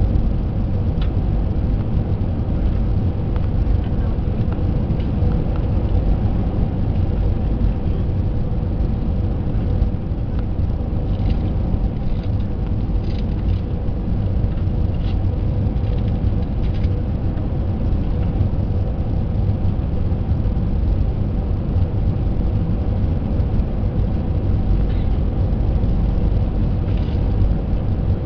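Airliner cabin noise beside the wing: the turbofan engine and airflow make a steady low rumble, with a steady hum tone running through it.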